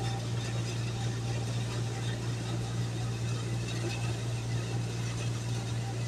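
A ship's engine running with a steady low drone.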